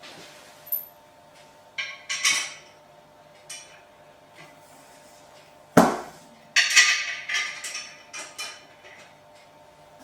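Metal desk parts and screws clinking and scraping in short clusters while the feet are fitted to an electric sit-stand desk leg, with one heavy thump about six seconds in.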